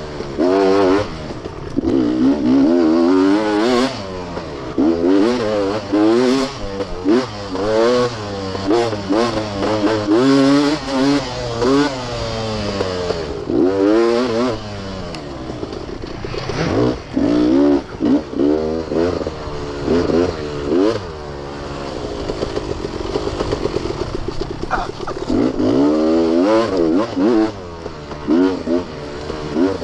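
Beta dirt bike engine revving up and down again and again as it is ridden hard, the pitch rising and falling every second or so, with occasional knocks. About two thirds of the way through it settles briefly into a steadier, quieter run before revving hard again.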